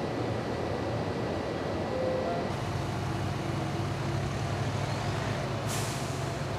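Street traffic with vehicle engines running steadily. About five and a half seconds in, a heavy vehicle releases its air brakes in a short, sharp hiss.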